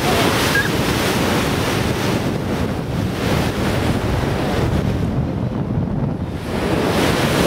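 Wind buffeting the microphone over rushing water from a moving boat, a steady noisy roar that eases a little about five seconds in.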